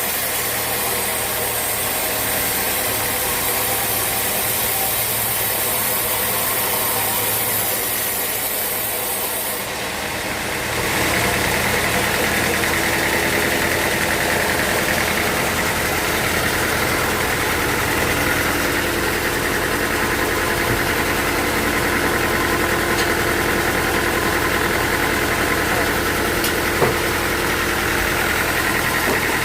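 Sawmill machinery running steadily with an engine-like hum. About ten seconds in the sound shifts: a high hiss drops away and a steady, higher whine comes in.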